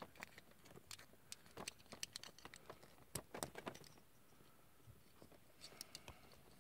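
Faint scattered clicks and taps of small plastic action-figure armor parts being handled and pressed onto a Rockman EXE Blues Soul figure, with a quieter pause around four seconds in.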